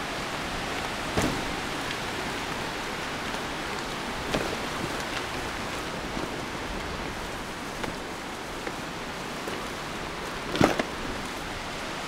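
Bicycle tyres rolling over a gravel forest track: a steady rushing hiss, broken by a few knocks from bumps, the loudest about ten and a half seconds in.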